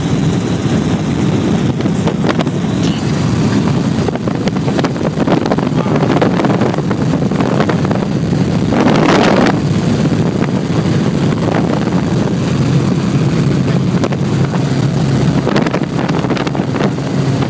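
Helicopter cabin noise in flight: the engine and rotor make a loud, steady drone with a fast, even beat. About nine seconds in there is a brief surge of rushing noise.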